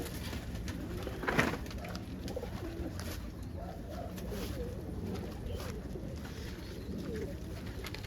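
Domestic pigeons in a loft cooing, a steady low burble of many overlapping coos, with a brief sharper sound about a second and a half in.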